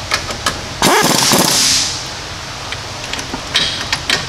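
Air impact wrench run in one loud burst of about a second, a little under a second in, driving home a front brake caliper bolt. A few light tool clicks come before it, over a steady fan hum.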